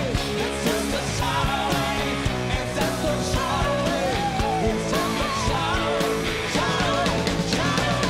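Rock music with guitar and a wavering melody line.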